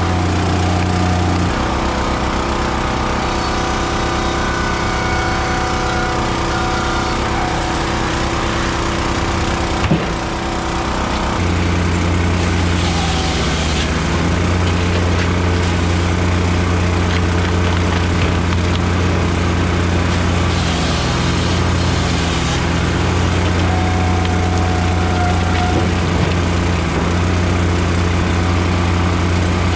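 Engines of a Blockbuster firewood processor and a County Line log splitter running steadily. The engine note shifts for the first ten seconds or so and then settles, with a single sharp knock about ten seconds in.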